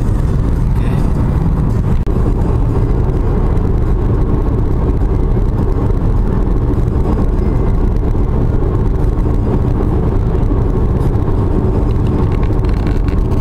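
Steady road and engine noise of a moving car, heard from inside the cabin, deep and even throughout.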